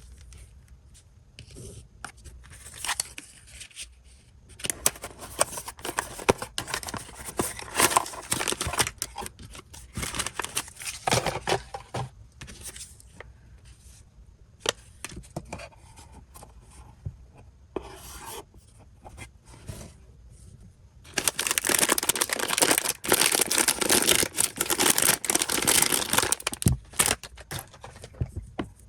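Blind-box toy packaging being torn open and crinkled by hand: two long stretches of crackling rustle and tearing, the second, starting about 21 seconds in, the louder, with small handling clicks between them.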